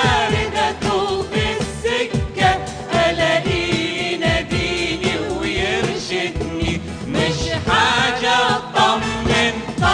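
Arabic Christian hymn sung to a band backing with a steady beat, moving from the verse into the chorus near the end.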